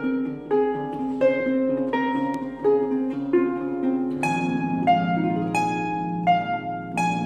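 Concert harp played solo: single plucked notes about every two-thirds of a second, each ringing on over the last. About four seconds in, deeper bass notes come in underneath and the plucks grow brighter.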